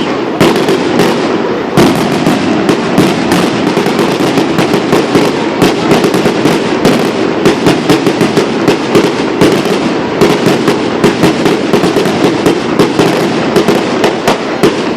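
Fireworks going off in a loud, rapid, unbroken barrage: many sharp bangs a second over continuous crackling.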